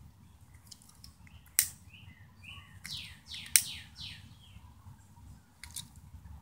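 Two sharp clicks about two seconds apart, a lighter being struck to light a cigarette, while birds chirp: short notes a little after two seconds in, then a quick run of falling chirps around three seconds in.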